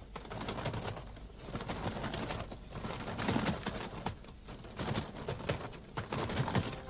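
Cartoon sound effect of a grouse's wings flapping and fluttering in quick, rattling bursts as it struggles in a snare, with short pauses between the bursts.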